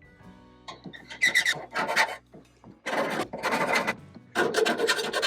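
Hand file rasping back and forth over a freshly sawn cut on the truck, in a series of strokes about half a second each after a brief quiet start, deburring the cut edge.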